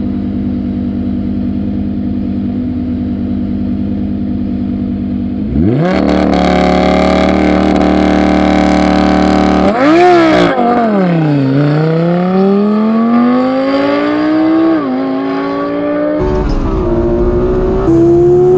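Naturally aspirated V10 engines of an Audi R8 V10 Spyder and a Lexus LFA held at steady revs on the start line, revs jumping higher about five seconds in. About ten seconds in they launch: the note dips as the cars bite, then climbs steadily under full acceleration, with sharp upshifts near the end.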